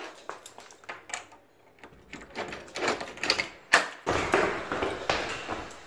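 Footsteps going quickly down hard stairs: a run of irregular clicks and scuffs, with a single sharp knock a little past halfway, after which the steps and scuffing get louder and denser.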